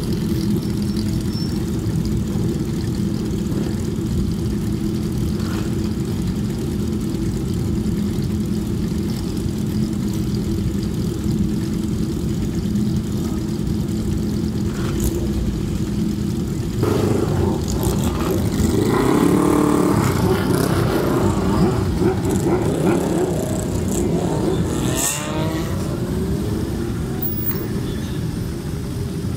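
Classic Japanese four-cylinder motorcycles idle and pull away one after another, their exhausts running as a steady engine hum. About two-thirds of the way through they get louder, with revs rising and falling as bikes accelerate past.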